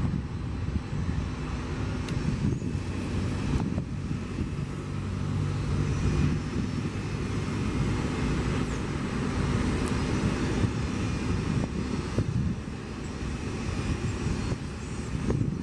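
Boeing 787-9's Rolls-Royce Trent 1000 turbofan engines running at taxi power as the airliner rolls along the taxiway: a steady rumble with a low hum.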